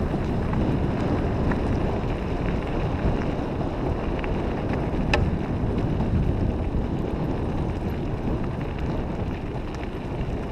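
A dog scooter rolling fast along a gravel trail: a steady rushing noise of tyres on gravel and wind on the microphone, with an occasional sharp click of stones.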